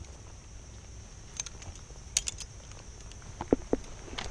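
Steady high chirring of crickets, broken by a few scattered light clicks and two dull knocks about three and a half seconds in.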